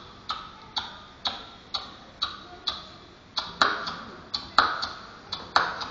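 Beatboxing into a microphone: a steady house beat of sharp hi-hat-like clicks, about two a second, with heavier kick and snare strokes joining on the beat from about three and a half seconds in.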